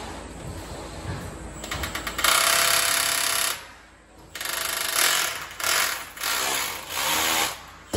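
A handheld power tool runs in four bursts with a buzzing rattle: one of about a second starting two seconds in, then three shorter ones from about halfway.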